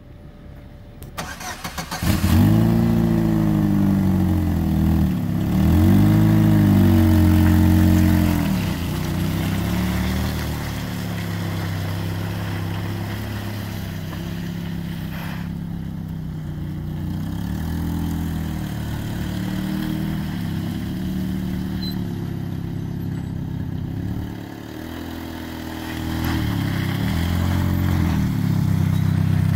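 1998 GMC Sonoma pickup's engine cranking briefly and catching about two seconds in, revved several times, then running steadily as the truck drives across the yard. The pitch rises again with acceleration a few times, most clearly near the end as it turns back.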